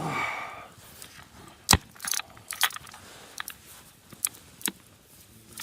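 Irregular sharp clicks and clinks of small hard objects, with one loud knock a little under two seconds in and a quick cluster of clinks just after.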